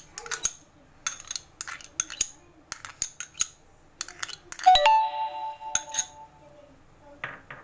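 Metal spoon scraping and clinking against a glass bowl as curd is spooned out of a plastic pouch onto chicken, a run of short clicks. About five seconds in the spoon strikes the bowl hard, and the bowl rings for about a second and a half.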